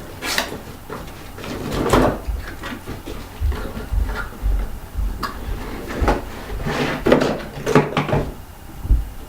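Boxed candy-cane packaging being opened and handled by hand: irregular scrapes, rustles and light knocks, with a few sharper clatters.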